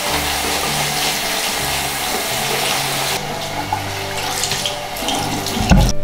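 Water running from a single-lever bathroom mixer tap into a sink basin, splashing over a hand held in the stream. The rush is fullest for about three seconds, then thins, and a single thump comes near the end.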